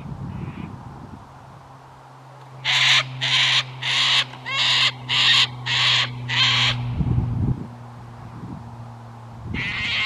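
Sulphur-crested cockatoo screeching: a run of seven harsh screeches about half a second apart, starting about three seconds in, with more starting near the end.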